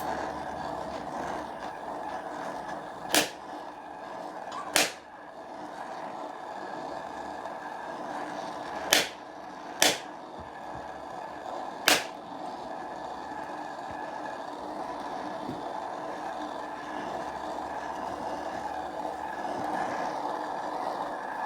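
Gas torch flame hissing steadily while heating a Loctite-seized fitting on an aluminium hose reel to loosen the threadlocker. Five sharp metallic clicks or knocks come through it, two close together about nine to ten seconds in.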